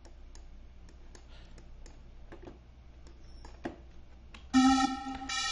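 Computer mouse clicks, then about four and a half seconds in a Sylenth1 software synth patch plays: a pitched tone with many overtones and a hiss above it, starting suddenly, dipping and coming back a moment later.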